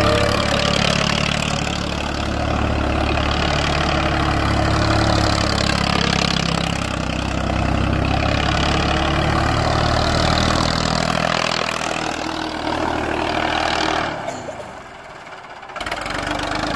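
Ford 3600 tractor's three-cylinder engine running loudly through a modified exhaust stack while driving, its pitch rising and falling with the throttle. Near the end the sound drops away briefly, then picks up again.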